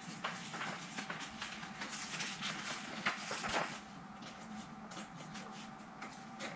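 A table leg being twisted by hand onto a double-ended screw in a particleboard tabletop, making many small scraping and clicking noises. They are busiest in the first few seconds and thin out after.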